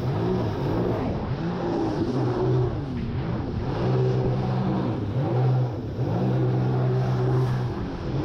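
Jet ski engine running under way, its pitch repeatedly rising and falling with the throttle.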